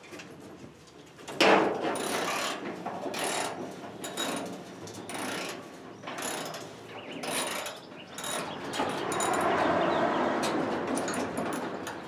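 Ratcheting, clanking lifting gear worked in repeated strokes about once a second, then a longer run of steady clatter near the end, as a car body is raised off its frame.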